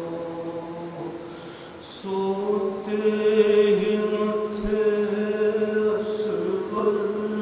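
A man chanting into a microphone in long, held melodic notes: a recitation of the Karbala story. His line fades about a second in, and after a short dip a new note starts about two seconds in and is held to the end.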